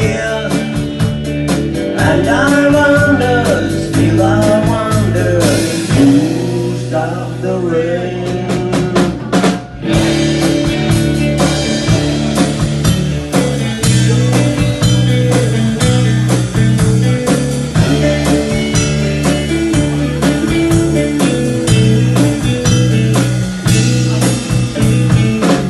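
Rock band music without words: guitar over a drum kit keeping a steady beat, with a short break just before ten seconds in.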